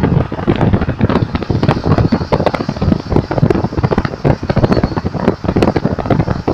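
Wind buffeting the phone's microphone in a moving car, a continuous crackling rumble over road noise.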